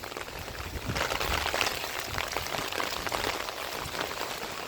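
Water splashing and pattering in many small drops as rain and downspout runoff run into a French drain. It gets a little louder about a second in.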